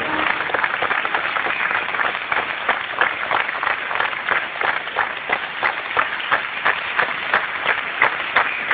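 An audience applauding, the clapping falling into a rhythmic beat in unison about halfway through, at about three claps a second.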